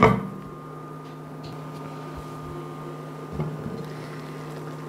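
Induction hob humming steadily while it heats a covered pot of water, with a sharp clink of the glass pot lid at the start and a light knock about three and a half seconds in.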